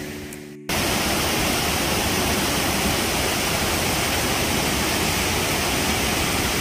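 Steady, even rushing of water that cuts in abruptly under a second in and holds unchanged.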